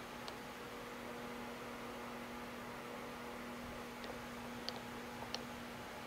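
Steady electrical hum with about four faint, light clicks as the cross-slide crank on a lathe saddle is handled.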